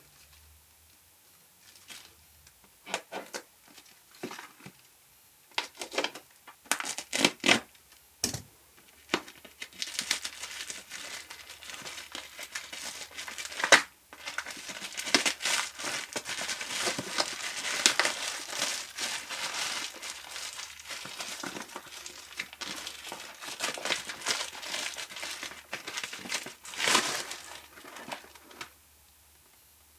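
Packaging crinkling and rustling as a filter kit is unwrapped by hand. It starts as a few separate rustles and handling clicks, then turns into a long stretch of continuous crinkling with a short break partway through. It stops shortly before the end.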